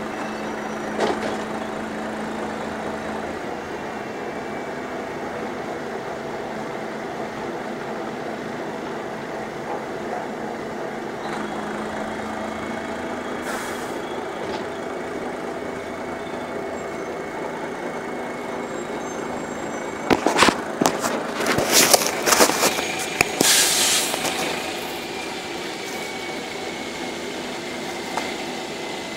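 Mercedes-Benz O-500 MA articulated bus running with a steady, rough engine rumble ('ronco podre') that the uploader thinks may come from a holed exhaust. About twenty seconds in, a run of loud sharp clatters and hissing lasts some five seconds.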